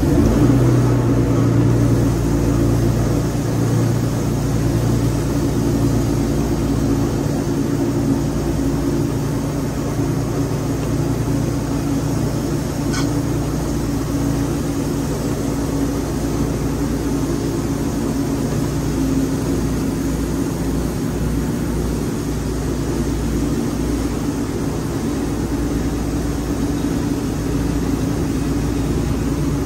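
Engine of a Wood-Mizer LT40 portable band sawmill running steadily with an even drone, with a single short click about a third of the way through.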